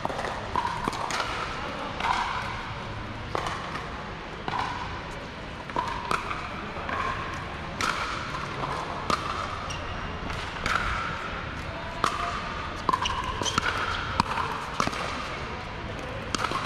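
Sharp, irregular pops of pickleball paddles hitting the hard plastic ball, with voices in the background.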